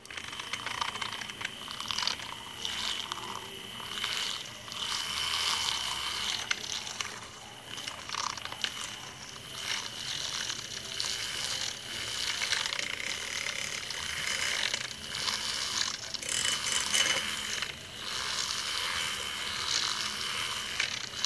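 Handheld milk frother running steadily, its wire whisk spinning in egg yolk beaten with sugar in a glass mug: a steady high whine with uneven rattling.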